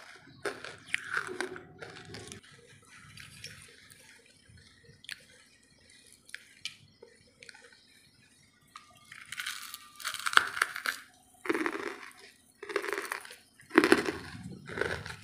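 Close-miked biting and chewing of hard, ash-coated wood charcoal. A few crunches come in the first two seconds, then a quiet stretch of faint chewing clicks, then a run of loud crunching bites over the last five seconds.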